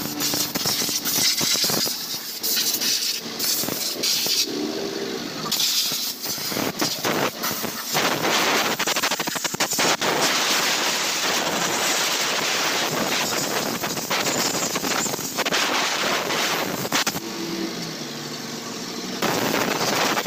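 Water spraying from a hose nozzle, hissing and spattering against a motorcycle and the wet concrete floor, rising and falling as the spray moves.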